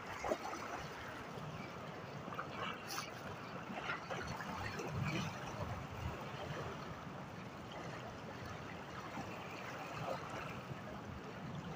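Small waves lapping and splashing on choppy water, a low, steady wash of noise with a few small clicks.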